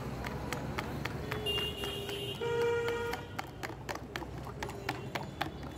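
Rapid clicking of a utensil stirring juice in a plastic jug, over a steady traffic rumble. A vehicle horn sounds twice in the middle, a lower held tone followed by a higher one.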